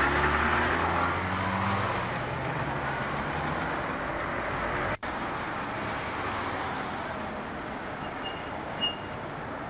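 City street traffic. A lorry's engine runs loudly as it passes close by in the first two seconds, then fades into steady traffic noise. The sound drops out for an instant about halfway, and a short high squeak comes near the end.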